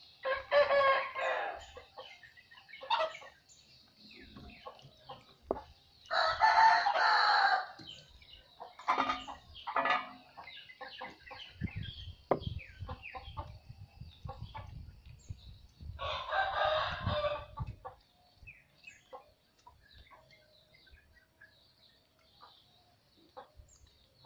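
A rooster crowing three times, each crow about a second long and several seconds apart, over scattered small clicks and knocks as monkeys pick rice out of an aluminium pot.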